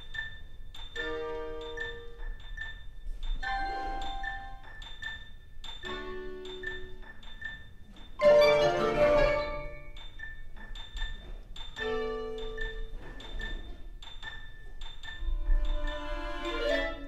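Contemporary chamber music for violin, cello, clarinet, piano and percussion: short chords and held notes over a regularly repeated high tick, with a loud full chord about eight seconds in.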